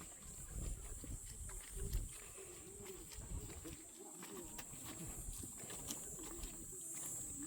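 Outdoor ambience: wind rumbling on the microphone, with a faint wavering melody in the distance and a steady high hiss.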